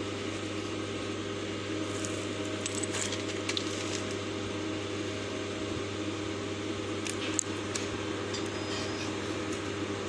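A steady electrical or fan-like hum, with scattered light clicks and clinks in two clusters, a couple of seconds in and again about two-thirds through.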